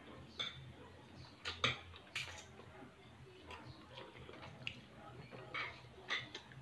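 Someone eating by hand: scattered short smacks and clicks of chewing, with light taps of fingers and food against a plate, over a faint low hum.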